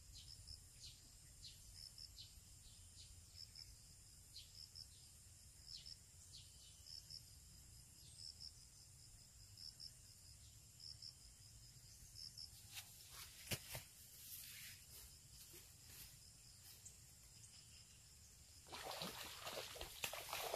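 Faint outdoor ambience: a steady high insect drone with short chirps repeating about once or twice a second, a few sharp clicks about two-thirds of the way through, and a louder burst of rustling noise near the end.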